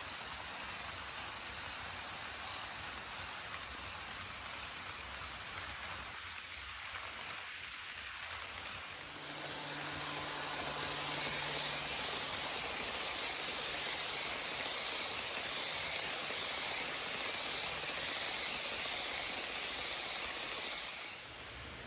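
HO scale model trains rolling on sectional track: a steady rattle of wheels on the rails. About nine seconds in it turns louder and hissier, with a faint motor hum, as a Pennsylvania Railroad passenger train runs close by. It eases off just before the end.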